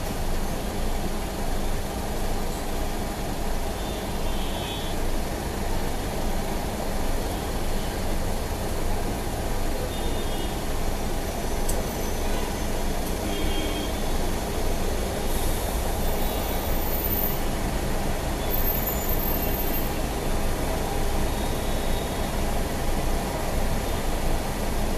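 Steady low rumble of idling traffic heard from inside a stationary car, with a few faint, brief tones now and then.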